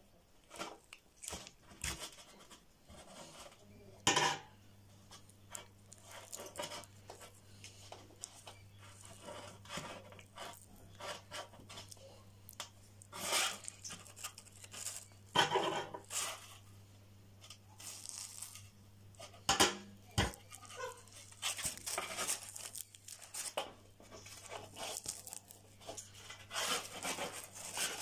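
Knife scraping hair and skin off an animal trotter (paya) to clean it, in irregular strokes of scraping and tearing with a few sharper knocks.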